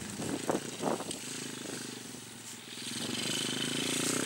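KXD 612 Pro mini cross dirt bike's small engine running with a steady buzz as the bike rides across the track, easing off about halfway and then growing louder over the last second or so as it comes closer. Two brief thuds about half a second and a second in.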